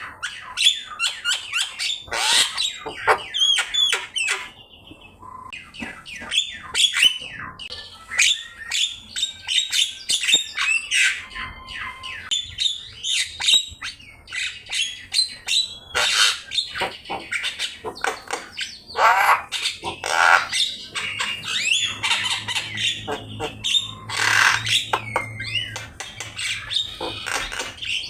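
Javan myna (jalak kebo) in full song: a dense, unbroken stream of harsh squawks, chatter and short whistled glides.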